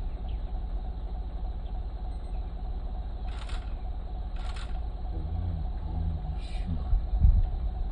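Vehicle engine running with a steady low rumble, with a few short higher sounds over it and a heavy low bump about seven seconds in.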